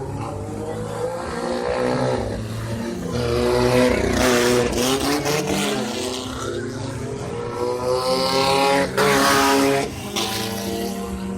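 Off-road race car engines revving and accelerating, with louder surges about four seconds in and again near nine seconds as cars pass close, and engine drone in between.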